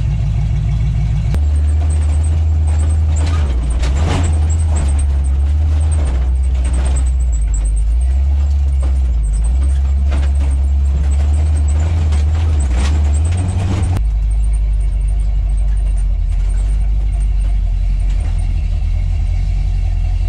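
Lifted 4x4 truck's engine running loud and low under load off-road, heard from the cab. The engine note changes about a second in and again around two thirds of the way through, with rough, uneven noise over it in between.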